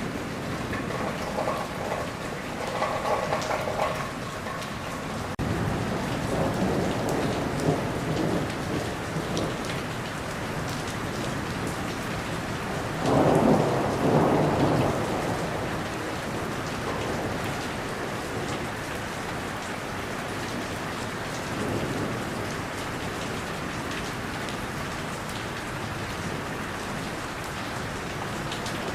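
Steady rain with rolls of thunder rumbling in several times; the loudest roll comes about halfway through.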